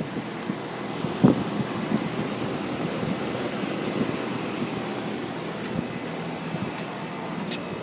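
Two Carrier Infinity 17 central air-conditioner condensing units running together: the steady whoosh of their outdoor fans over a low hum from the two-stage scroll compressors. There is a single light knock about a second in.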